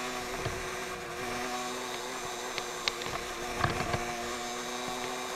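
Motorcycle engine running at a steady speed, its pitch holding even, with a few sharp knocks and clicks on top.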